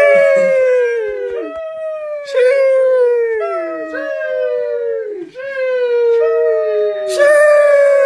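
The 'sheesh' meme sound effect on repeat: a voice drawing out a long 'sheeeesh', each one opening with a hiss and sliding down in pitch. The repeats come every second or so and overlap one another.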